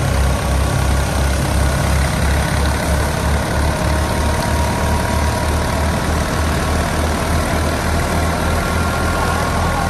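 Fiat 480 tractor's three-cylinder diesel engine running steadily with an even low throb while driving a wheat thresher, which adds a steady high whine.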